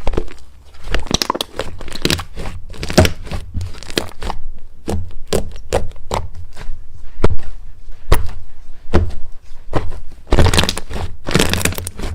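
Slime being squeezed and pressed by hand, giving irregular sharp crackles and pops, with a dense run of them near the end.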